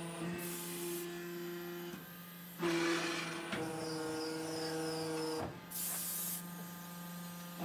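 Steady electric hum of a soil interlocking brick machine's hydraulic power unit running, broken by short bursts of hissing. The loudest burst comes about three seconds in and another about six seconds in.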